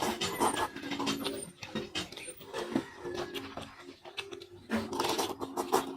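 Close-up eating sounds: wet chewing, lip smacking and slurping of spicy seafood, in irregular clicks and bursts.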